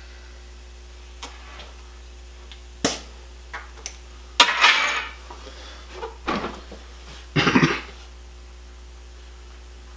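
A sharp click, then a short hiss of air about four and a half seconds in as the air chuck comes off the motorcycle tyre's valve after inflating it to seat the bead. Two shorter bursts of rubbing and knocking follow as the tyre and wheel are handled and lifted.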